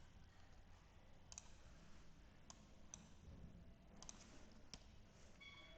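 Faint, scattered clicks from a computer mouse and keyboard being worked, about six separate clicks over a near-quiet room hiss.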